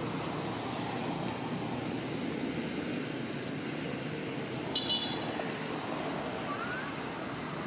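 Steady outdoor background rumble, with one short high-pitched toot about five seconds in.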